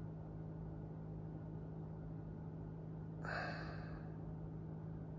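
A person breathes out once, short and audible, about three seconds in, over a faint steady low hum.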